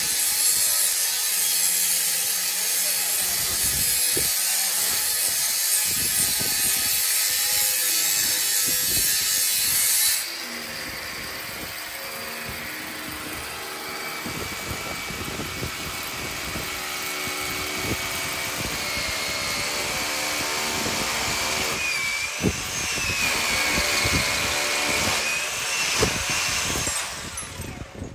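A power tool working metal, with a loud steady grinding or cutting noise. About ten seconds in it drops to a quieter running sound with steady tones and a wavering whine.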